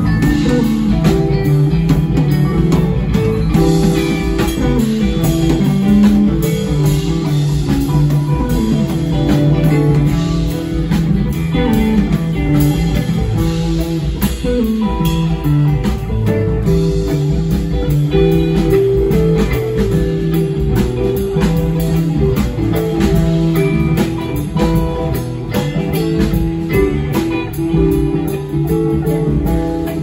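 A live band playing: electric guitar with sliding, bent notes over bass guitar, a drum kit with cymbals, and an electric keyboard.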